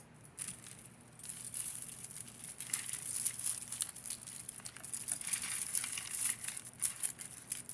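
Packaging crinkling and rustling with many small clicks as a box of mixed costume jewelry is dug through by hand, starting about a second and a half in.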